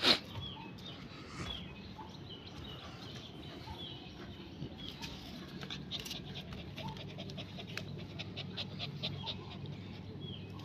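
Scuffling and handling noises of a golden retriever puppy being held on its back on concrete, with a sharp knock at the start and a run of soft clicks in the second half. Small birds chirp over and over, and a steady low hum sits beneath.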